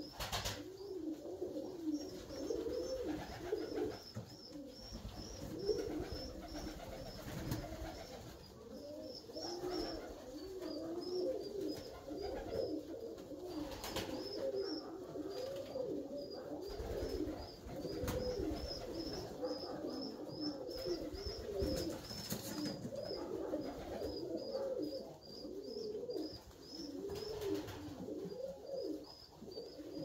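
A flock of Alföldi-Körösi tumbler pigeons cooing, many rolling coos overlapping without pause. A faint series of short high chirps repeats over them, with an occasional brief clatter.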